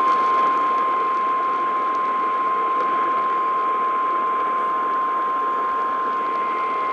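A weather radio warning alarm tone: one steady, unbroken single-pitch beep heard over radio hiss. It signals the start of a flash flood warning broadcast.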